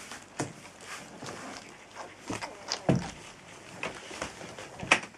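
A litter of puppies eating from a plate of food chunks: irregular wet smacking and chewing with clicks and knocks against the plate, the loudest knock near the end.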